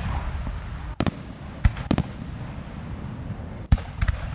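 Aerial fireworks shells bursting: a series of sharp bangs, one about a second in, two close together near two seconds and two more near four seconds, over a constant low rumble.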